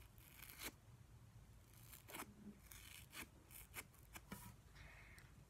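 Faint, scattered crackling pops of slime being worked in its plastic tub: the "sizzly" sound of tiny air bubbles popping in the slime.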